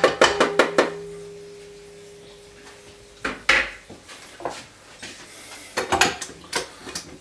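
A metal grater knocked several times on the rim of a stainless steel stand-mixer bowl, shaking off grated ginger, and the bowl rings on with a steady tone that fades away over about three seconds. A clatter follows a little later, and a few sharp clicks come near the end as the mixer is handled.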